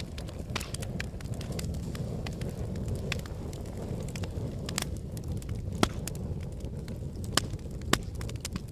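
Wood fire burning, with a dense run of sharp crackles and pops over the low, steady noise of the flames. Three louder pops come in the second half.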